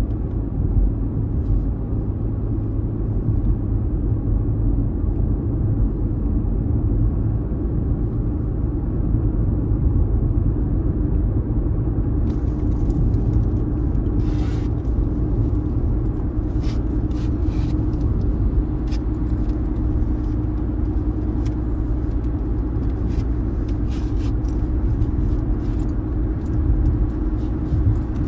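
A car driving along a city street: a steady low rumble of road and engine noise with a faint steady hum. From about twelve seconds in come irregular light clicks and rattles.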